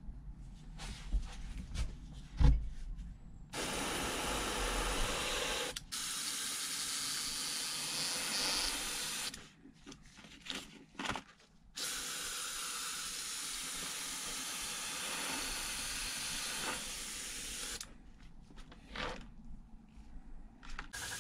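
Airbrush spraying in three long, steady hissing bursts a few seconds each, with short pauses between. Before the first burst there are a few light clicks and one sharp knock.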